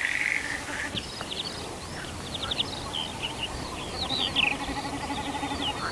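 A small songbird singing a rambling phrase of quick, varied high chirps and slurred notes, starting about a second in. A short buzzy note sounds at the very start.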